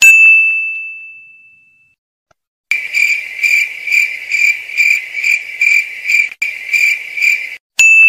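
Edited-in sound effects: a bright ding rings out and fades over about two seconds. After a short gap comes a steady high chirping, pulsing about twice a second like crickets. A second ding cuts in near the end.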